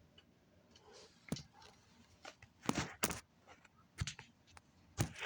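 A few sharp knocks and rustles at irregular intervals: handling noise from the camera being moved and repositioned.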